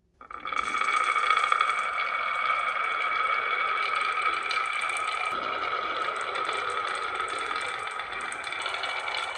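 Marbles rolling down a marble run track in a steady rolling whirr with a few held ringing tones and light clicks. It starts suddenly just after the beginning.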